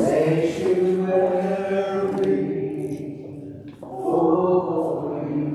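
A group of voices singing a hymn together in long held notes, with a short break between phrases after about three and a half seconds.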